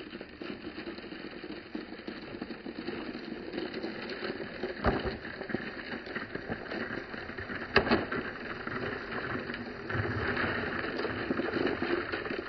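Glass marbles clattering and rattling against each other as large balls roll through a packed bed of marbles on a wooden pegboard track, a continuous rolling rattle with a few sharper clicks about five and eight seconds in.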